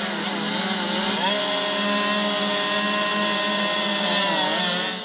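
A pack of 65cc two-stroke youth motocross bikes revving hard together at the start line. The pitch climbs about a second in, holds high, then wavers near the end as the bikes pull away.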